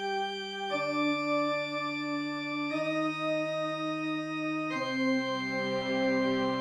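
Music: sustained organ-like chords, each held about two seconds before the next one comes in.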